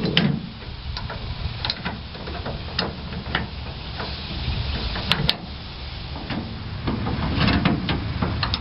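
Scattered clicks and knocks of an adjustable pickup-truck tie-down clamp being handled and fitted by hand, with two sharp clicks about five seconds in.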